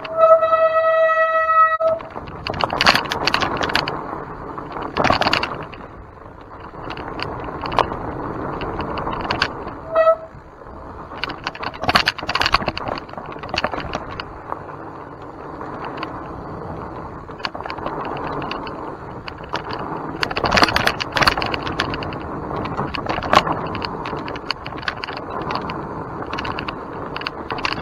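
Mountain bike riding over a rough trail: the bike rattles and knocks over bumps, with wind on the microphone. A steady pitched squeal sounds for under two seconds near the start, and a short one comes about ten seconds in.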